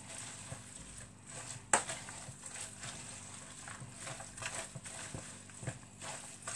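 Scattered light clicks and taps of a mixing bowl and kitchen utensils being handled, with one sharper click about two seconds in.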